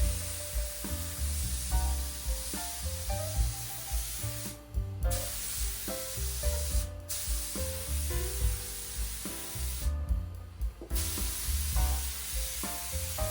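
Clear coat being sprayed in light passes: a steady spray hiss that stops and restarts about three times, around a third, halfway and three quarters of the way through, over background music.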